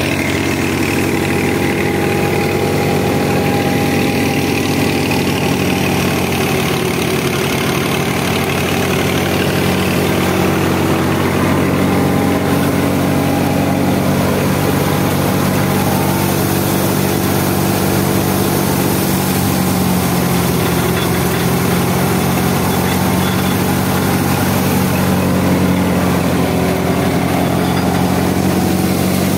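Tractor-driven wheat thresher running steadily: the tractor engine's steady hum under the broad rushing noise of the thresher's spinning drum and pulleys working through straw.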